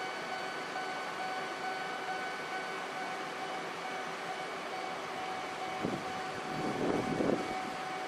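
Level crossing warning alarm ringing steadily with its electronic bell tone. Near the end a passing road vehicle swells briefly louder over it.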